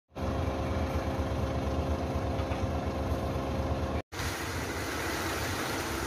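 Diesel engine of a Hino 500 concrete mixer truck idling steadily. After a short break about four seconds in, it is replaced by a noisier engine sound mixed with the rush of concrete sliding down the truck's discharge chute.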